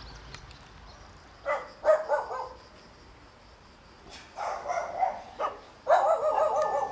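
A dog barking in three short bouts: one about a second and a half in, another around four and a half seconds in, and a third near the end.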